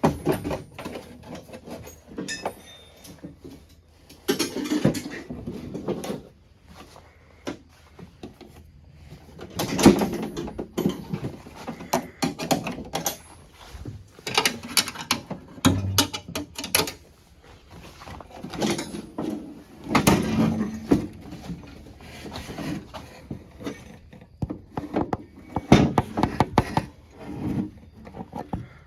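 Irregular knocks, clunks and scraping of a snowmobile hood being handled and fitted back into place on the machine, in scattered bursts without any steady running sound.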